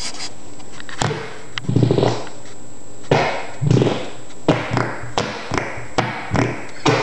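Fart-like noises made by a boy's back pressing and slipping against the floor: several short spluttering bursts, coming shorter and closer together in the second half.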